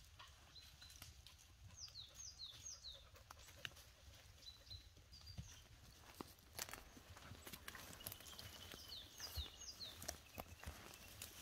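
Faint, irregular hoof steps and knocks of horses moving over the ground. A small bird calls twice in short phrases of three high, falling notes.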